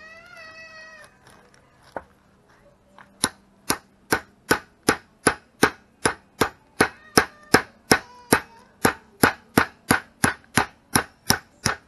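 Claw hammer striking the spine of a kitchen knife to drive the blade through a whole snook's backbone: a steady run of about twenty sharp metallic taps, roughly two and a half a second, starting about three seconds in. A cat meows briefly at the very start.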